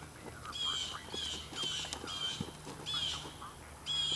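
A bird calling over and over, short calls of about a quarter second each, roughly two a second.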